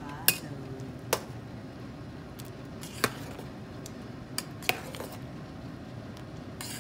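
Metal ladle stirring a stainless steel pot of thick coconut-milk stew, clinking sharply against the pot about five times, a second or two apart.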